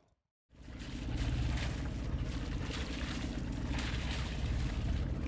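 Alberg 30 sailboat motoring: its inboard engine runs at a steady, even rumble, with wind and water rushing past. The sound comes in about half a second in, after a moment of silence.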